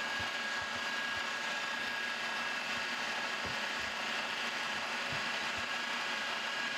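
Milling machine running with an end mill taking the final pass of a slot cut in a tapered broach bushing, a steady mechanical whine with faint irregular low knocks.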